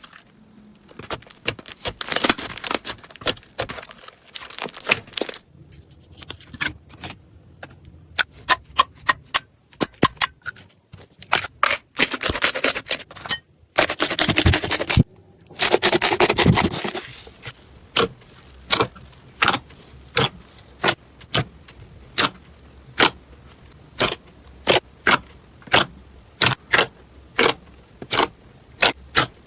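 Slime being squeezed and poked, giving sharp pops and crackles: several dense crackling stretches in the first half, then a steady run of single pops, about one and a half a second.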